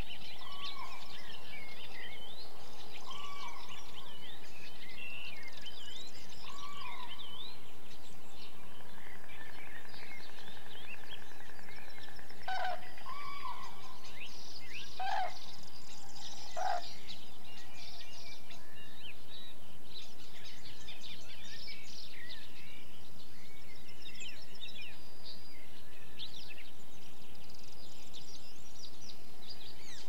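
Common cranes calling: a few short calls in the first half, then three louder trumpeting calls in the middle. Small birds chirp continuously over a steady background hiss.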